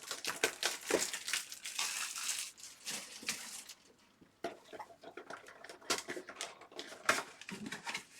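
Trading-card pack being opened and gone through by hand: wrapper crinkling and cards rustling and clicking against each other in quick, dense bursts, with a short pause about four seconds in before more card handling.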